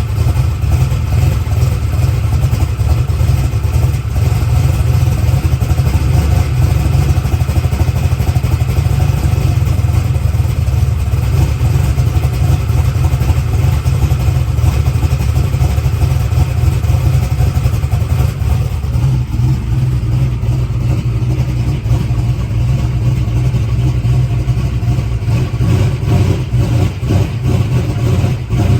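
Small-block Chevy V8 drag engine idling cold, a steady, loud idle whose note changes a little about two-thirds of the way through.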